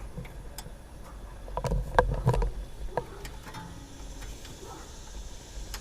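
Scattered clicks and knocks of hands working the hood latch cable free of its small clamp, with a cluster of them about two seconds in.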